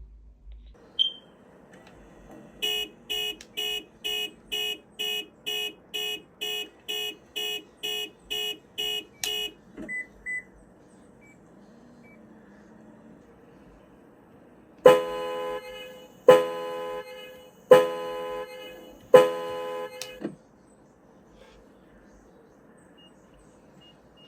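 Car alarm: a run of electronic beeps, about two a second for some seven seconds, two short chirps, then four long car-horn blasts about a second and a half apart.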